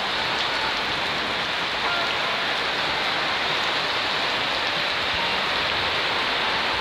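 Rain pouring down steadily, an even hiss with no let-up.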